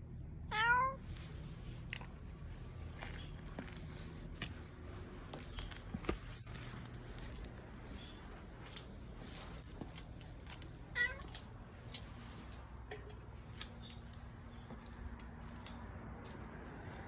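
A cat meowing: one rising meow about half a second in, and a shorter, fainter one about eleven seconds in, with scattered light clicks between.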